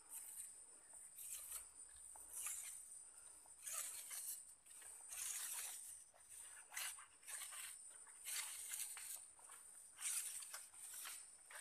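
Steady high-pitched insect drone, with short rustling noises coming every second or so.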